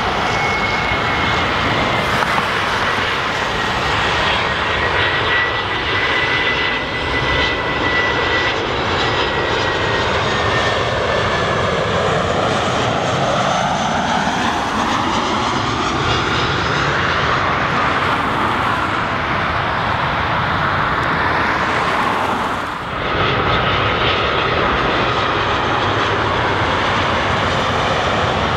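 Boeing 737 airliner on final approach with gear down, its jet engines giving a loud steady roar with a high whine that slowly falls in pitch as it passes, the roar sweeping in pitch as the jet goes by. About three-quarters of the way through, the sound switches abruptly to a second approaching 737's engine noise.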